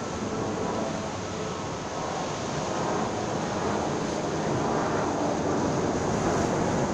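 Sea surf washing against the rocks of a jetty, a steady rush of noise with wind on the microphone, growing a little louder over the last few seconds.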